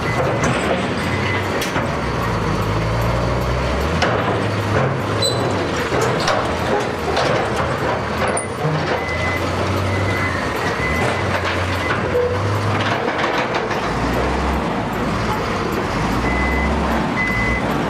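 Heavy diesel earthmoving machinery at work: the engines of a Hyundai HL780-9 wheel loader and a Doosan excavator running and revving under load while broken rock is dumped into a Doosan MT41 articulated dump truck, with scattered knocks and clatter of rock. A reversing alarm beeps about once a second near the end.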